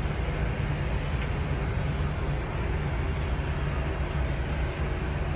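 Airport fire engines running steadily while their water cannons spray the aircraft: a continuous low rumble with a hiss over it.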